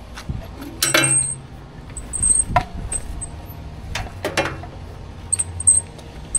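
Pressure-washing hose and reel gear being handled as the hoses are pulled out: several sharp metallic clinks and knocks, with short high squeaks in between, over a low steady hum.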